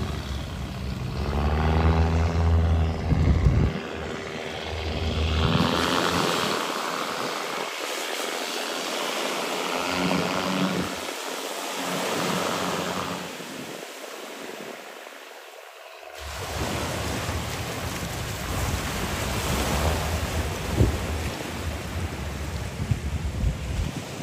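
Wind on the microphone over surf on the beach, with an engine droning steadily for a few seconds near the start and more faintly again about halfway through.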